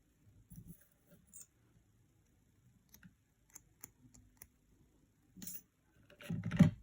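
Light, scattered clicks and taps of repair tools working on a phone's circuit board while leftover solder is cleaned off the display contacts, with a short rub about five seconds in and a louder scraping rub near the end.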